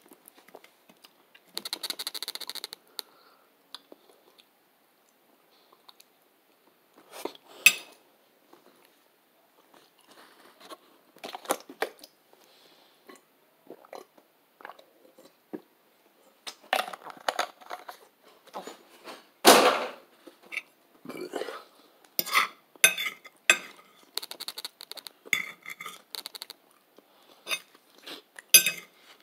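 Close-miked eating: biting and chewing food, with irregular clicks, rustles and clinks, and a few sharper knocks now and then.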